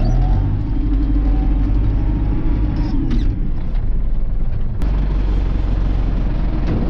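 Tractor diesel engine running, heard from inside the cab while the tractor turns and backs up to a trailer to hitch it. There is a slight rise in revs near the start and a single sharp click about five seconds in.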